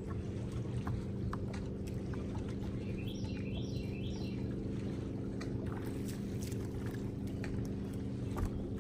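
Steady low hum of a bass boat's bow-mounted electric trolling motor, with scattered small clicks of rod and reel handling as a crappie is reeled in. A few short high chirps sound about three seconds in.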